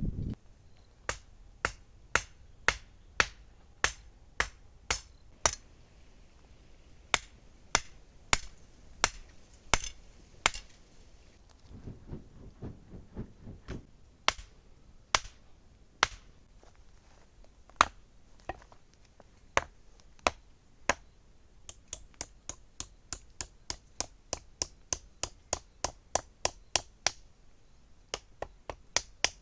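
Hand hammer blows struck one at a time, forging steel, about one to two a second, each a sharp ringing hit. There is a short break midway, then a quicker run of lighter strikes.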